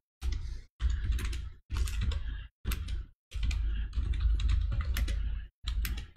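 Typing on a computer keyboard: several bursts of rapid key clicks with short silent breaks between them.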